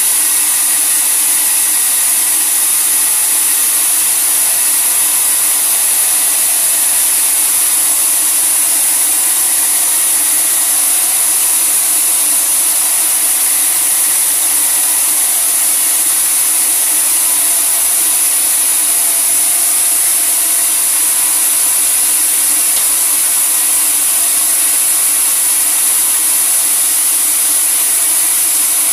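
Sawmill saw running steadily, a loud continuous machine noise with a strong high-pitched hiss that does not change.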